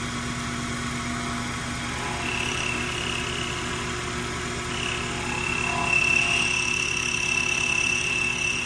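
Sherline 5400 benchtop mini mill running steadily, its end mill cutting metal. A high cutting whine comes in about two seconds in and is strongest from about halfway through.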